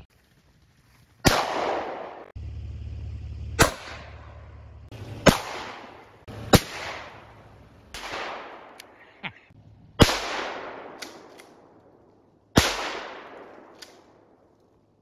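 About seven gunshots one to two and a half seconds apart, each a sharp crack trailing off in a long echo, with a few fainter pops between them.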